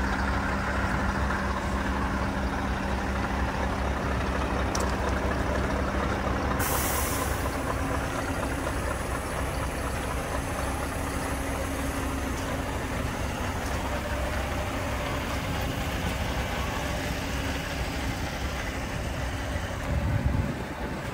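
Scania R580's 16-litre V8 diesel idling with a steady low rumble. About seven seconds in, a short loud hiss of compressed air is let out from the truck's air system, and a low bump comes near the end.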